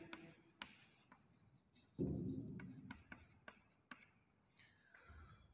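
Chalk writing on a blackboard: faint scratches and small taps of the chalk stick as a word is written. A short, louder low sound comes about two seconds in and fades within a second.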